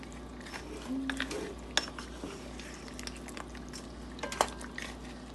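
Cooking pot, lid and utensils clinking and knocking on the stove, with a sharp knock nearly two seconds in and a louder clatter near the end.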